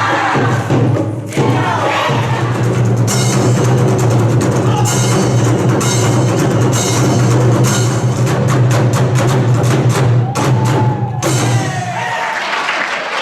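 Korean pungmul percussion ensemble playing a loud, dense pattern of drum and gong strikes over a steady low hum; the beats speed up and break off about eleven seconds in, and applause begins near the end.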